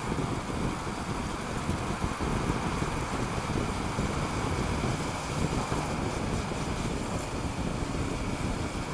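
Wind rushing over the helmet camera's microphone while a Honda Africa Twin CRF1000L cruises steadily through a road tunnel, its running blended with the tunnel's traffic noise.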